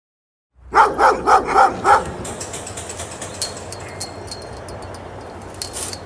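A dog barks five times in quick succession. Then there is a steady background hiss with scattered light high-pitched ticks.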